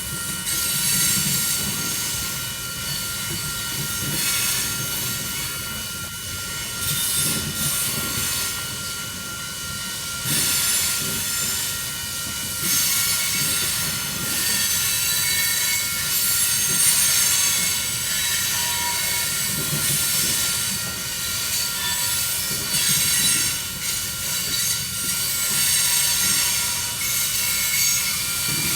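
Union Pacific coal train's freight cars rolling past, wheels running on the rails with a steady high-pitched wheel squeal over the noise.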